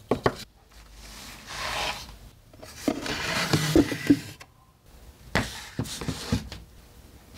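Wooden objects being handled on a workbench: scraping and rubbing as a slotted wooden rack is slid out, then several sharp wooden knocks as it is set down a little past the middle.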